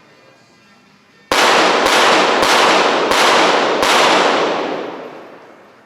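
A .22 Short rapid-fire pistol fires a five-shot series in about two and a half seconds. The five sharp shots come in quick succession, each trailing off in a long echo.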